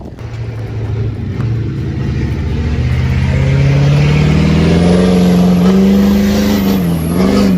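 Ford F-350 pickup's engine revving up: its note climbs steadily over several seconds, then wavers at high revs near the end.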